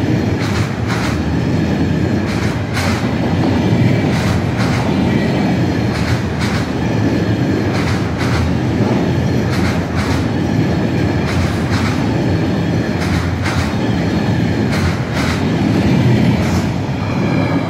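Container freight train's flat wagons rolling past: a steady heavy rumble with repeated clacks of the wheels over rail joints, one to two a second.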